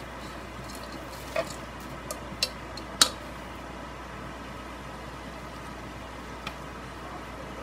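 A plastic spatula stirring corn in a metal saucepan, knocking against the pot a few times, the loudest knock about three seconds in, over a steady low hiss.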